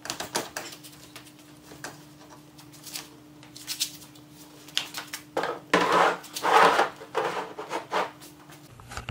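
Handling noise from removing the seat of an EZGO RXV golf cart: scattered knocks and clicks, with a louder stretch of scraping and rubbing about six to seven seconds in. A faint steady hum lies underneath.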